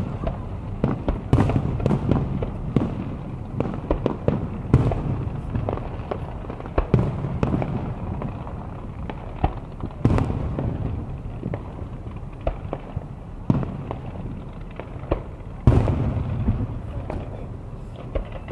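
Fireworks display: aerial shells going off in an irregular string of bangs, a few much louder booms among them, over a steady low rumble.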